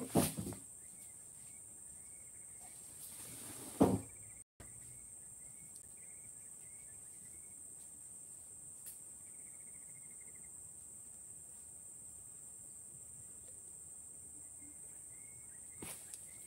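Steady high-pitched drone of insects, with faint chirping calls coming and going. Two sharp knocks, one at the start and one about four seconds in, and a few light footsteps near the end.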